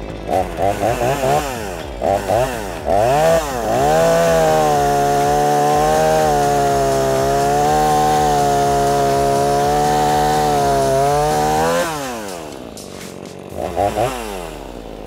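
Two-stroke petrol chainsaw with a freshly sharpened .325 chain: a few quick throttle blips, then held at steady full revs for about seven seconds while it cuts through a hardwood post, falling back to idle near the end with one more short rev. The sharpened chain throws bigger chips and gets through the timber in about 7 seconds.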